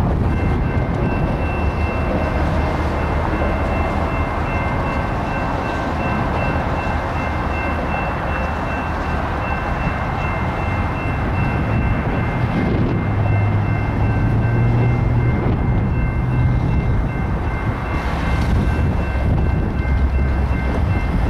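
Group of diesel locomotives rolling past with a low engine rumble that grows heavier about two-thirds of the way through. A steady high ringing tone of three notes sounds over it.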